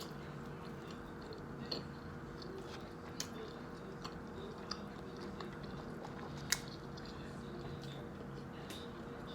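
Close-miked chewing of a grinder salad sandwich on French bread, with a few sharp mouth clicks scattered through. A steady low hum runs underneath.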